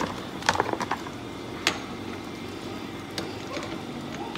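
Slotted cooking spoon knocking against a large stainless-steel stockpot and the crab legs in it while the crab legs are pushed down into the boil: a few sharp knocks, a quick cluster of them about half a second in, then single ones at about one and a half and three seconds.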